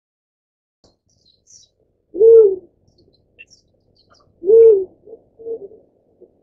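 Black-chinned fruit-dove giving two low hooting coos about two seconds apart, each about half a second long, followed by a few softer, shorter notes. Faint high chirps sound in the background.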